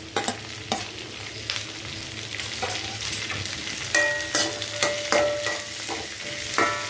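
Spatula stirring and scraping chopped capsicum and onions around a metal kadai, with clicks and knocks against the pan over the sizzle of stir-frying on high flame. From about four seconds in, the pan rings briefly after several of the spatula knocks.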